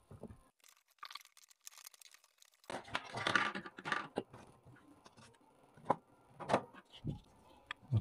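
Unpacking noise: the cardboard box and the fan's white plastic parts and cable being handled on a wooden desk. It is a rustling, scraping stretch about three seconds in, then a few sharp plastic knocks and clicks.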